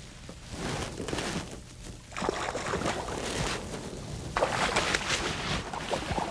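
Water splashing as a hooked smallmouth bass thrashes at the surface beside the boat, a crackling wash that grows louder about two seconds in and again a little past four seconds in.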